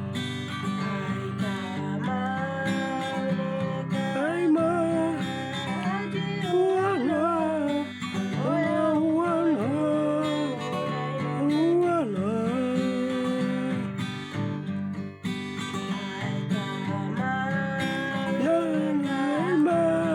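Music: a strummed acoustic guitar, with a voice singing a bending melody over it from about two seconds in.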